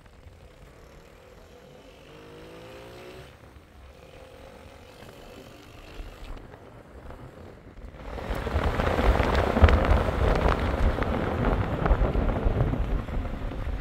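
Faint street and traffic noise, then about eight seconds in, loud wind buffeting the microphone with a low rumble, as from riding along in the open.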